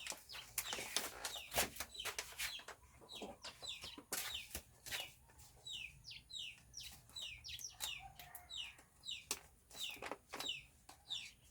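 Chickens in the background: a steady run of short, high, falling peeps several times a second, with a few lower clucks. Crinkling and clicking of handling, likely the coffee packet, is mixed in, mostly in the first few seconds.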